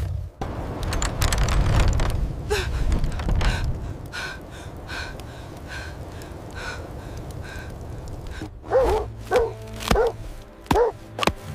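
A canine, dog- or wolf-like, barks about five times in quick succession in the last few seconds. Before that, a loud low rumbling noise fills the first few seconds, with music underneath.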